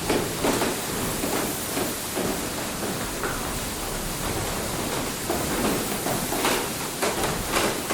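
Water mill: a steady rush of falling water, with irregular splashes surging through it.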